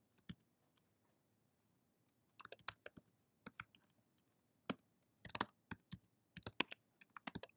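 Typing on a computer keyboard: a couple of key clicks, a pause of about a second and a half, then a run of quick keystrokes.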